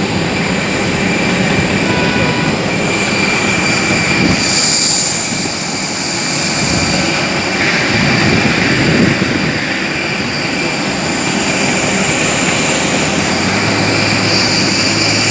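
Loud, steady engine noise with a few constant high whining tones, of the kind heard around a jet airliner while boarding. A low hum joins in near the end.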